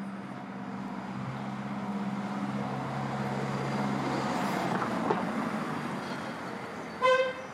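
A motor vehicle's engine hum rises as it passes along the street and then fades. Near the end comes one short, loud car-horn beep.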